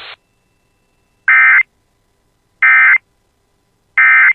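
Emergency Alert System end-of-message signal: three short, loud bursts of SAME digital data tones, evenly spaced about 1.3 seconds apart, closing the alert broadcast.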